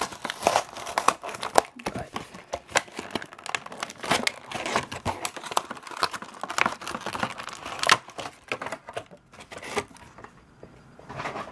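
An action-figure blister pack being opened by hand: stiff clear plastic crinkling and crackling with many sharp clicks. It dies down about eight seconds in.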